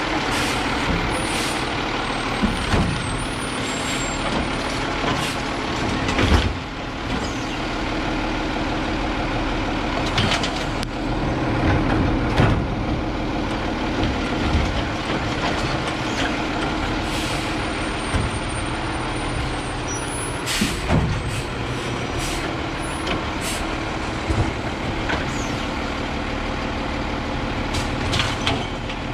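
Autocar Xpeditor side-loader garbage truck's diesel engine running steadily while its automated arm lifts and tips a cart into the hopper, with several sharp bangs and hisses along the way.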